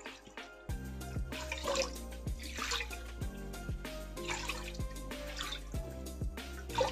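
Water poured from a steel vessel into a cup held over a cooking pot, splashing into the pot in a few bursts, over background music with a steady beat of about two per second that starts just under a second in.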